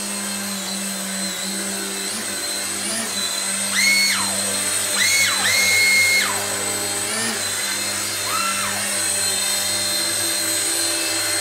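Small coaxial electric RC helicopter hovering: its motors whine over a steady rotor hum. Several times in the middle the whine shoots up sharply in pitch, holds, then slides slowly back down as the motors speed up and settle during the turn.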